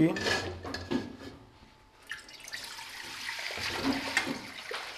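Water poured in a stream into an empty aluminium pressure cooker, splashing on the metal; the pouring starts about two seconds in and grows steadily louder. A short clunk comes at the start.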